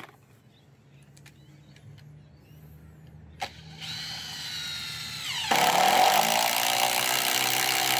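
Makita cordless impact driver in its auto mode driving a screw: the motor spins up with a whine about four seconds in, then at about five and a half seconds the impact mechanism kicks in with a loud, continuous hammering as the screw meets resistance.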